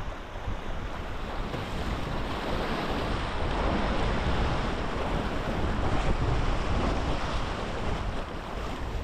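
Rushing river water, a loud steady wash, with gusty wind buffeting the microphone.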